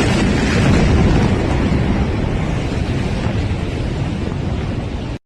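Loud, steady rumble and roar of a massive explosion's blast wave just after it strikes, fading only slightly, then cut off suddenly near the end.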